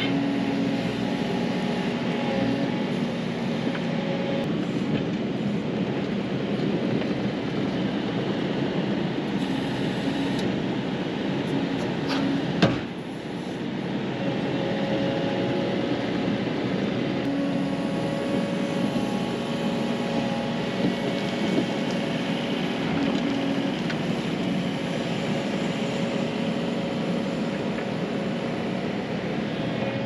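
Kubota compact track loader's diesel engine running steadily as the machine moves and dumps loads of dirt. One sharp knock about halfway through, after which the level dips briefly.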